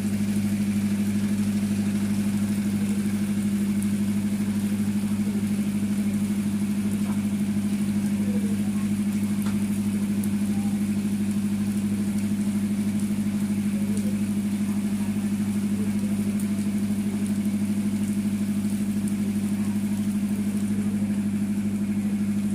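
A boat engine idling nearby, a steady low hum that holds the same pitch and level throughout.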